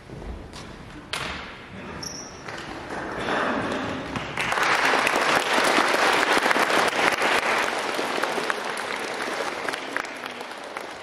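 Audience applauding, starting thinly and swelling about four seconds in, then slowly dying away, after a few knocks near the start.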